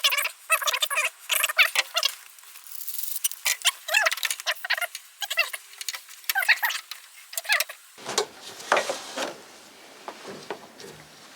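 Plastic tubing and the pull-start cord being worked by hand, making a run of short scratchy rubbing and squeaking strokes. About eight seconds in, this gives way to a broader, fuller rubbing.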